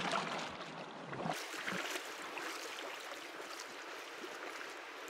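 Kayak paddle dipping and splashing, with water lapping, over a steady hiss of water.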